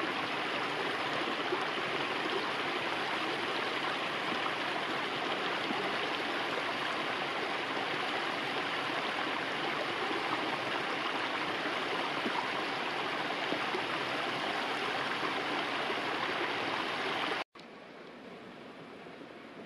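Mountain creek running over rocks: a steady rush of water. It cuts off suddenly near the end, leaving a much quieter steady hiss.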